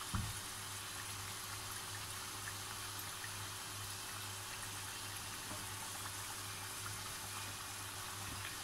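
Samosas deep-frying in hot oil in a pan: a steady sizzle with small crackles and a low hum underneath. The samosas are already cooked and are browning over a raised flame.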